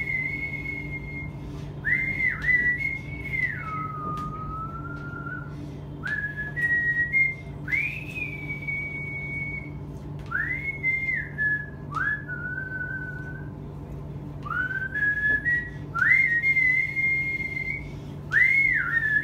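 A woman whistling a melody through pursed lips, in short phrases that slide up into held notes and fall away, with brief pauses between phrases. A steady low hum runs underneath.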